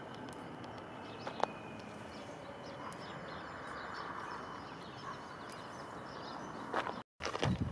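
Small birds chirping over a steady outdoor background hiss, with a single sharp click about a second and a half in. Near the end the sound drops out for a moment, and then a louder, uneven low rumble begins.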